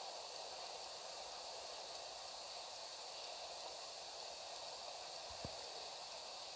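Steady hiss from the noise floor of an old archive video recording, with one soft low thump about five seconds in.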